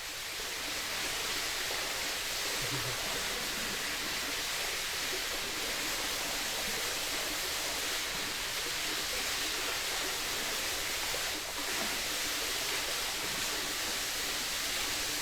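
Steady rushing and babbling of a creek's flowing water, recorded binaurally beside the stream.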